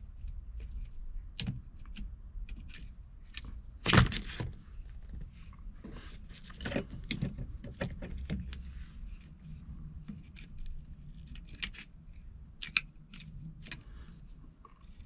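Clicks and clinks of small metal and plastic parts and tools being handled while an electric seat adjuster is taken apart, with one louder knock about four seconds in.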